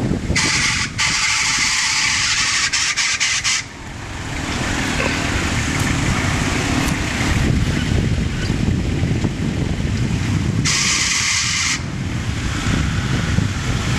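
Toyota Hilux 4WD crawling over rutted dirt: a steady low engine rumble mixed with wind on the microphone, and two spells of loud hissing, one in the first few seconds and a shorter one about eleven seconds in.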